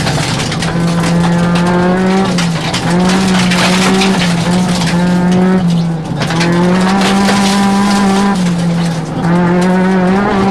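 Rally car engine heard from inside the cabin, revving hard and climbing in pitch, then dropping back at each gear change, about five times. Gravel from the dirt stage crackles and rattles against the car throughout.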